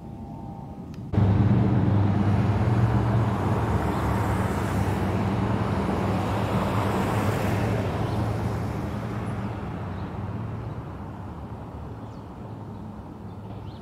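A motor vehicle's engine running close by, cutting in suddenly about a second in and then slowly fading away.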